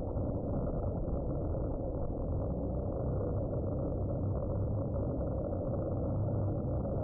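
Strong wind buffeting the eagle nest camera's microphone: a steady, low, rushing noise with no breaks.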